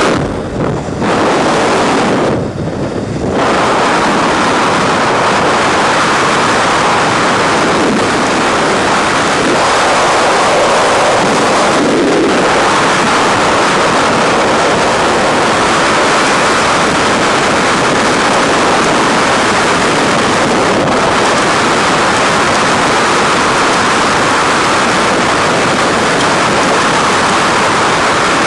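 Freefall wind rushing over the camera microphone: a loud, steady rush of noise with no tones in it, dipping twice in the first few seconds just after the exit from the aircraft.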